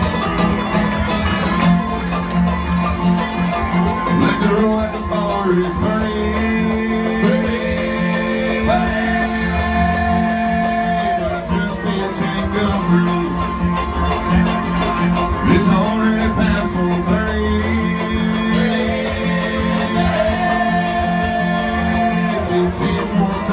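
Bluegrass band playing live, with banjo and guitar picking.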